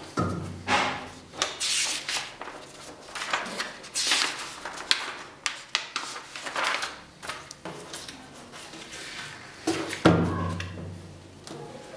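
Handling noise on a tabletop: paper booklet pages and plastic packaging rustling, with knocks as a coilover shock is moved about and one heavier thud about ten seconds in.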